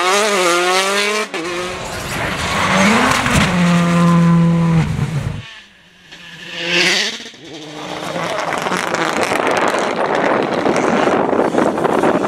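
Rally cars at full throttle, engines revving up and falling back through gear changes. After a short quiet gap about halfway through, a car rushes past close by. Near the end a Ford Fiesta R5 runs wide with a dense, noisy roar of engine and sprayed grit.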